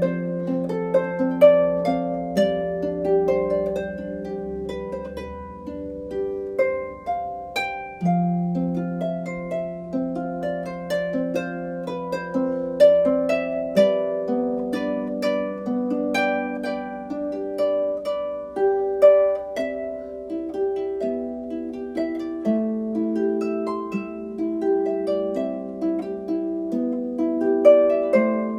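Harp music: plucked notes and chords that ring and die away, played at an unhurried pace.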